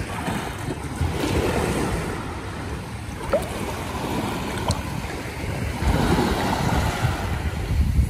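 Shallow sea water lapping and small waves washing in, swelling about a second in and again around six seconds, with wind rumbling on the microphone.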